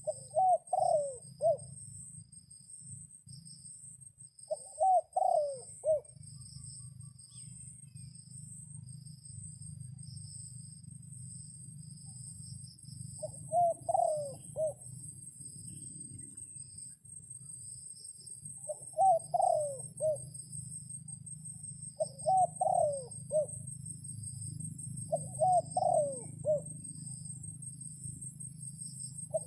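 A dove cooing: a short phrase of several falling notes, each phrase about a second long, repeated about six times at irregular gaps of a few seconds. A steady low hum and a steady high whine run underneath.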